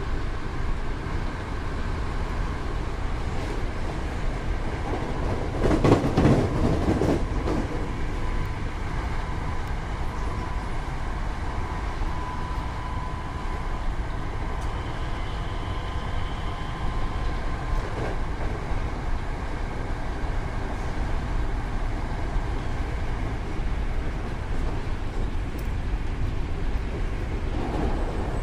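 Hankyu 8000 series electric train running: a steady rumble of wheels on track, with a louder clattering stretch about six seconds in and a faint steady whine through the middle.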